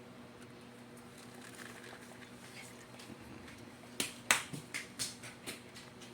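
A faint steady hum, then about four seconds in a quick run of about six sharp clicks or snaps over a second and a half, the second one the loudest.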